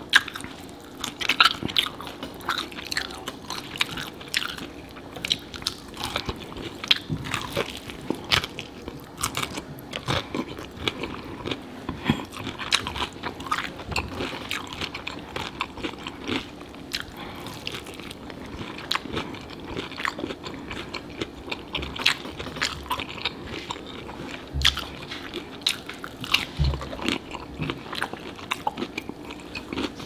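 Close-miked biting and chewing of sauce-coated fried chicken drumsticks, with frequent sharp crunches of the fried breading.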